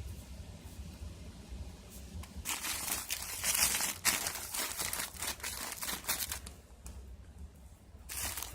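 Plastic jacket of a flexible return air duct crinkling and rustling as it is handled, in bursts from a couple of seconds in until near the end, over a steady low hum.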